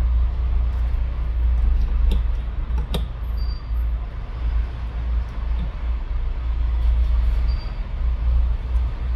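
Steady low rumble of road traffic in the background. Two sharp clicks come about two and three seconds in as the phone and battery are handled.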